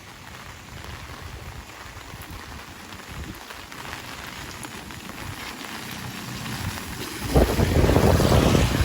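Heavy rain falling steadily, slowly building, then a sudden much louder, deeper rush of noise about seven seconds in.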